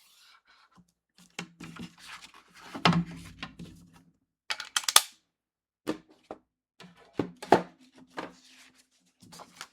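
Cardstock being handled and scored on a scoring board: scattered taps and paper rustles, with one short scrape of the scoring tool about five seconds in.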